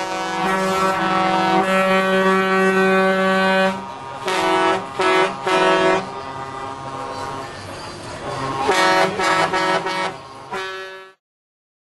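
Truck air horns sounding: a loud chord held for about four seconds, then three short blasts, and another cluster of blasts near the end before the sound cuts off suddenly.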